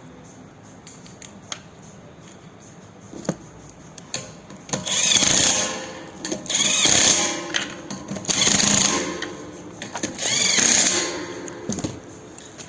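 A power tool's motor running in four short bursts, each about a second long, with the pitch swinging up and down as it speeds up and slows.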